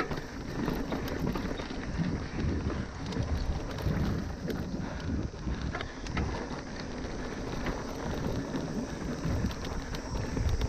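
Mountain bike riding fast down a rough dirt trail: wind buffeting the microphone over the rumble of tyres on the ground, with frequent sharp knocks and rattles from the bike going over bumps.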